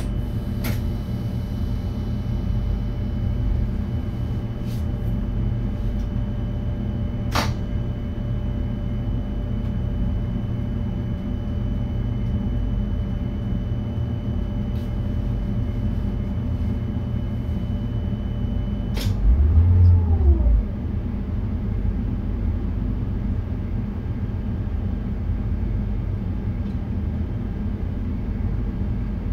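Steady low rumble of a VIRM double-deck electric train running, heard inside the driver's cab, with a few scattered clicks. About two-thirds in, a faint steady whine stops and a louder low thump lasts about a second.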